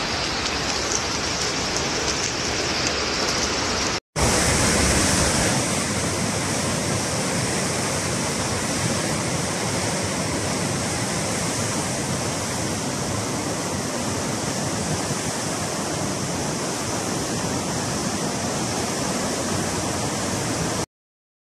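Floodwater rushing: a steady, loud rush of muddy water, after a brief break about four seconds in mostly water pouring over a wall into a concrete channel. It stops abruptly near the end.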